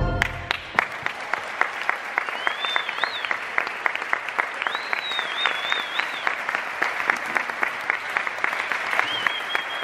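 Audience applauding as the tango music stops, the last note dying away in the first second. Dense clapping follows, with high, wavering whistles rising over it three times.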